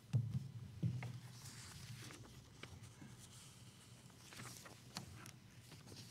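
A folder and papers handled at a lectern microphone, with two low thumps near the start, then light paper rustling and a few soft knocks.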